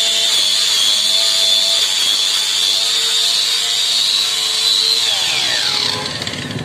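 Handheld rotary buffing tool running at a steady high whine as it grinds the rubber inner liner of a tubeless tyre, roughening it around the puncture so a patch will bond. About five seconds in it is switched off and winds down, its pitch falling quickly.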